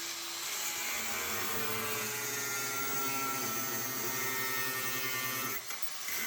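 A handheld power tool's motor running with a steady buzzing hum whose pitch drifts slightly. It cuts out briefly near the end and starts again.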